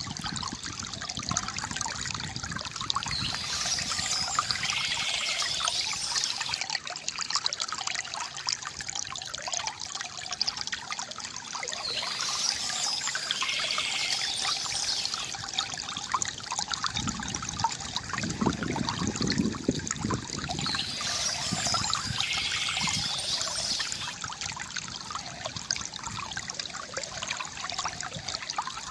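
Water trickling and gurgling steadily from a bamboo fountain, with a brighter, hissier stretch coming back about every nine seconds.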